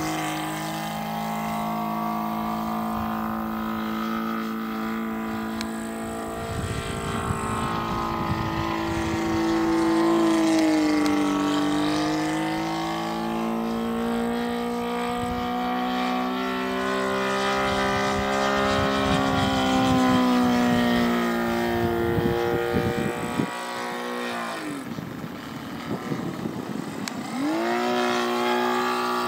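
Saito FA-450R3 three-cylinder four-stroke radial engine in a quarter-scale RC Waco biplane in flight, its note rising and falling as the throttle changes and the plane passes. About two-thirds of the way through it drops to a low, throttled-back note for a few seconds, then opens up again near the end.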